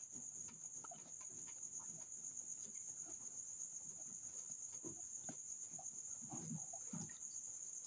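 Crickets trilling steadily at a high pitch, faint, with scattered brief faint sounds beneath them.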